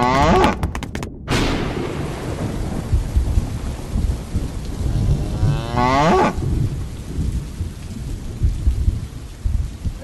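Heavy rain with a low thunder rumble, and a cow mooing twice, once at the start and again about six seconds in, each moo falling in pitch.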